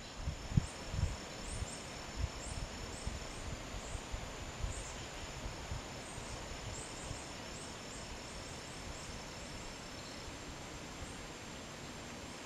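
A dog rooting through dry leaf litter, with irregular dull low thuds that are heaviest in the first few seconds. Over this come short high-pitched chirps, repeating irregularly, and a thin steady high whine from insects or birds.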